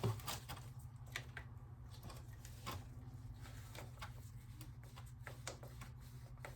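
Faint scattered clicks, taps and light rustling of hands working paper towel and small parts around a motorcycle's rear brake reservoir, with a soft knock at the start, over a steady low hum.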